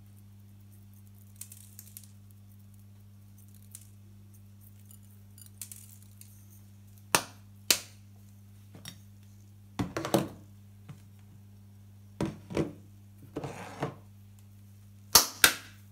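Sharp clicks, clinks and knocks of kitchen utensils and tableware being picked up and set down on a hard table, in several short clusters through the second half. A steady low hum runs underneath.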